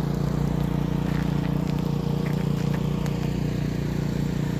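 A steady low engine hum, with faint crunching footsteps on snow now and then.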